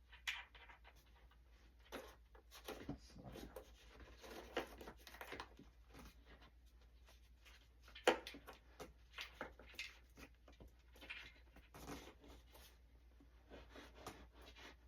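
Faint scattered clicks, taps and rustles of hands handling RC model airplane parts and wiring during assembly, with one sharper click about eight seconds in.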